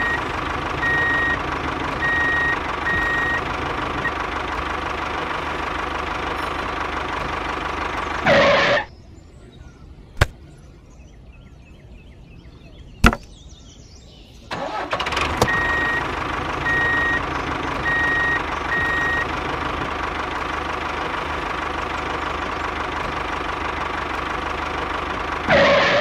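Tractor engine running steadily with a knocking beat. It cuts out about nine seconds in, leaving a quieter gap broken by two sharp clicks, then starts again about five seconds later and runs on.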